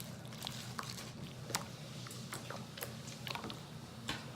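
Large glitter slime being handled, squished and stretched by hand, giving scattered, irregular faint sticky clicks and pops over a low steady hum.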